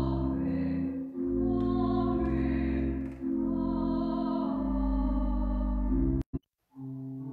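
Church organ playing slow, held chords over a deep bass note, the chords changing every second or two. The sound breaks off abruptly for about half a second near the end and comes back quieter.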